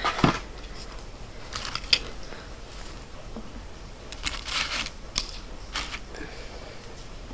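Light tabletop handling sounds as dishes and containers are moved about: scattered small clicks and taps, with a longer rustle about four and a half seconds in.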